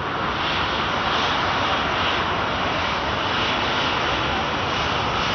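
Jet airliner engines at takeoff power during a departure, a steady, loud rushing noise.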